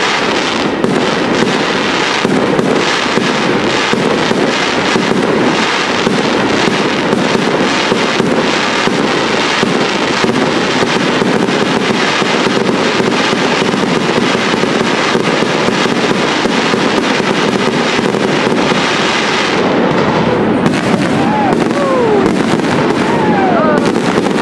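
Aerial fireworks display: a dense, continuous barrage of shell bursts, bangs and crackling. About twenty seconds in, the crackle thins out.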